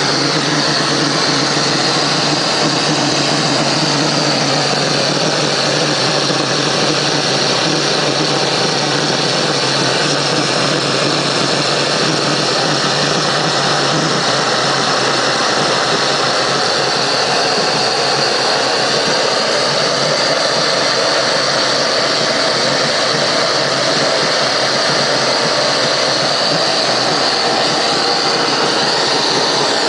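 Waste-oil jet furnace burner running at full fire, a loud, steady rushing noise of forced-air flame.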